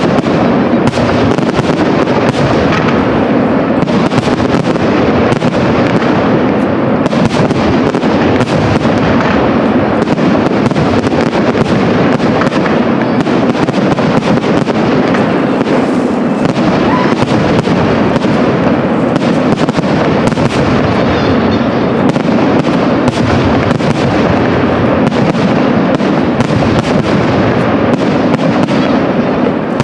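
Aerial firework shells bursting in rapid, unbroken succession, the bangs overlapping into a steady, loud barrage.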